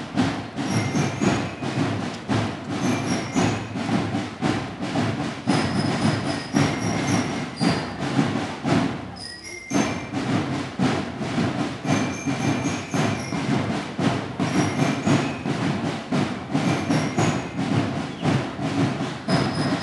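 Marching band drums playing a steady, driving beat, with short high ringing notes carried over the top. The sound briefly drops away about halfway through.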